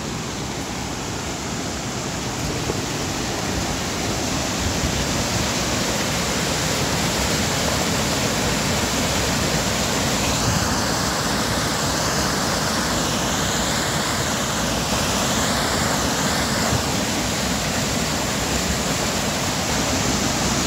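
Loud, steady rush of whitewater pouring from dam outlet pipes and churning over rocks in the river below. It grows a little louder over the first few seconds, then holds.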